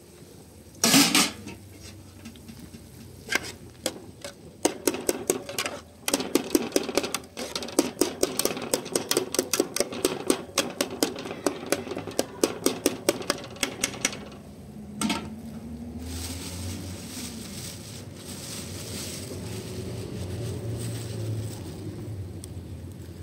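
Metal ladle stirring a steel pot of sauce, clinking against the pot several times a second for about ten seconds; a loud metal clank about a second in, and a steady hiss afterwards.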